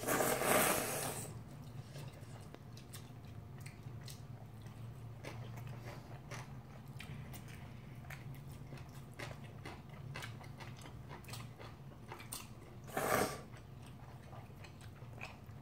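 Ramen noodles being slurped loudly during the first second and again briefly about 13 seconds in. In between there is quiet chewing with small smacks and clicks.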